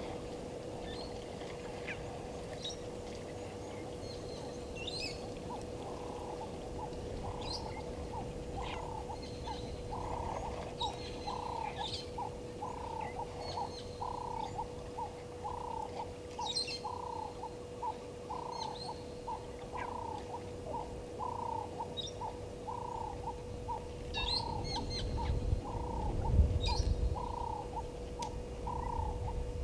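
Bush birds calling: a steady series of short notes repeated about twice a second, with scattered higher chirps and twitters over it. A faint steady hum runs underneath, and a low rumbling noise swells near the end.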